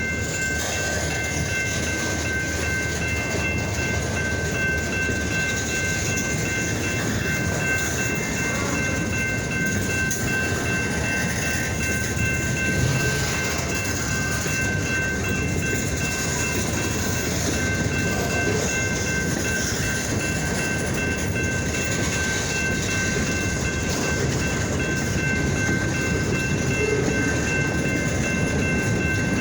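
Freight train running on the rails: a steady, unbroken rumble of wheels and cars, with a few thin high tones held throughout.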